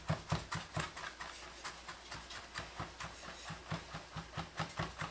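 Chef's knife mincing garlic on a plastic cutting board: a steady run of quick taps of the blade on the board, about four a second.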